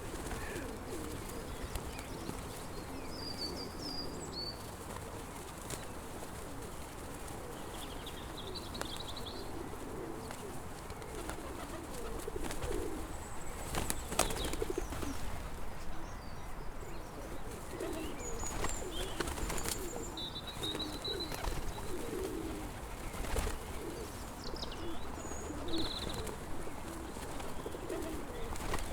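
Pigeons cooing over and over, with small birds chirping now and then, some wing flaps and a few sharp clicks over a steady outdoor background.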